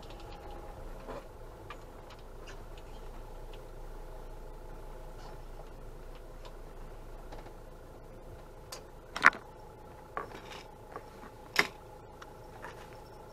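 Camper van engine running steadily at low speed during a slow parking manoeuvre. Several sharp clicks inside the cab over the last few seconds, one as a hand reaches to the dashcam.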